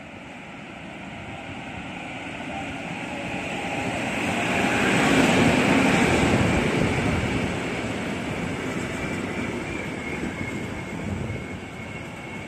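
A train passing by on the line, its sound building steadily to a peak about five to six seconds in and then fading.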